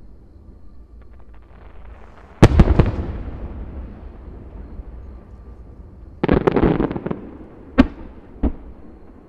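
Aerial firework shells bursting. A cluster of sharp bangs comes about two and a half seconds in, followed by a rumble that fades out. A second cluster follows about six seconds in, then two single bangs near the end.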